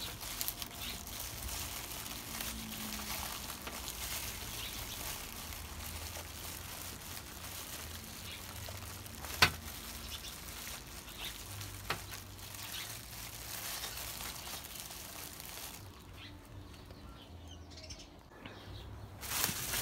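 Clear plastic bag crinkling and rustling as it is worked off a boxed air fryer, with a few sharp taps, the loudest about halfway through; the rustling dies down near the end.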